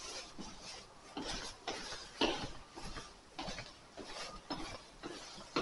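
Footsteps on stairs, soft scuffs and taps about twice a second, with some rustling.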